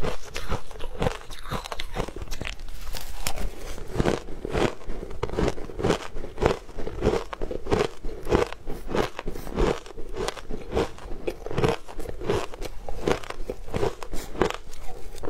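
Shaved ice being bitten and crunched in the mouth, a quick steady run of crisp crunches, several a second, picked up close on a clip-on microphone.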